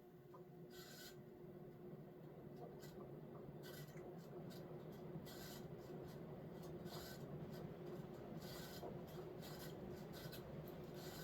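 1986 Fasco Charleston ceiling fan running and gathering speed on high, a steady hum that grows a little louder over the first few seconds. Irregular scratchy rubbing and squeaks run through it from its dry motor bearings.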